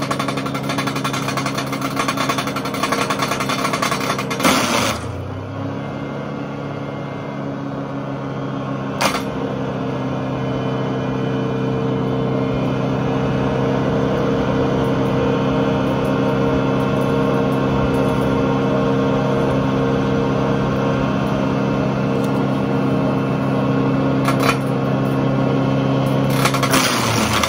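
Drum-type wood chipper with its Ford engine running steadily at speed, with a few sharp knocks, at about four and a half seconds, nine seconds and near the end.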